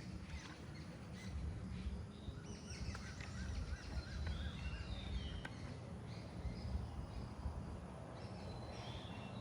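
Several songbirds chirping in a tree, short chirps and whistled notes overlapping throughout, with a quick run of about six repeated notes about three seconds in, over a steady low background rumble.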